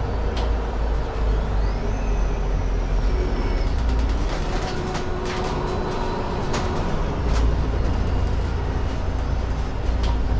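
Alexander Dennis Enviro 500 double-decker bus running, its Mercedes-Benz OM936 diesel engine giving a steady low drone. Scattered clicks sound over it, and a thin high whine rises about a second and a half in and then holds.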